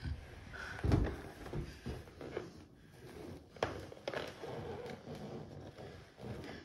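Handling sounds of a rubber balloon: soft thumps as it is bumped along the carpet, and rubbing as it is squeezed and fiddled with in the hands, with a firmer thump about a second in.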